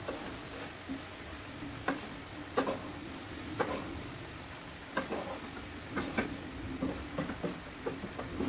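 Chicken livers, onions and tomatoes sizzling steadily in a nonstick frying pan on a gas hob. A wooden spatula stirring the food gives sharp knocks and scrapes against the pan, about one a second.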